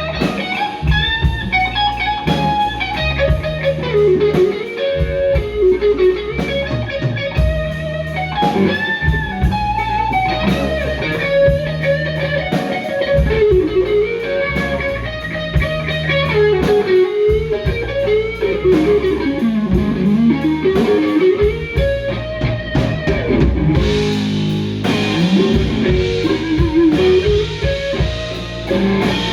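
Live blues band playing an instrumental break: an electric guitar solo of bending, sliding notes over bass and drums. The cymbals build up about three-quarters of the way through.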